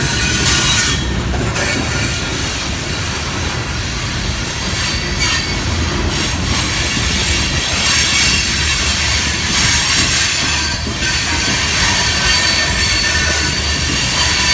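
Wheels of loaded coal hopper cars squealing against the rail on a curve: thin high-pitched squeal tones over the steady low rumble of wheels rolling on track.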